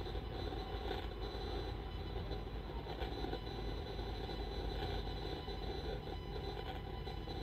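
Steady droning noise: a low hum under a hiss, with faint thin high tones held throughout and soft swells in the hiss every couple of seconds. It is the 'frequency' the uploader asks listeners to hear.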